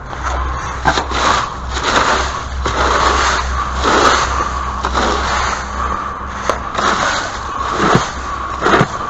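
A small engine running steadily, with repeated scraping and clattering noises and a few sharp clicks over it.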